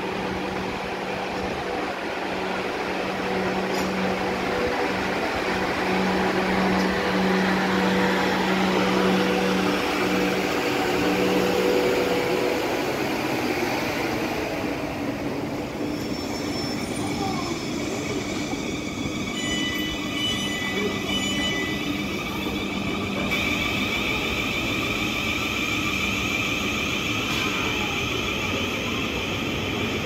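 South Western Railway electric multiple unit running along the platform, its traction equipment giving a steady hum that fades after about twelve seconds as the train moves away. Around twenty seconds in there are several short high beeps.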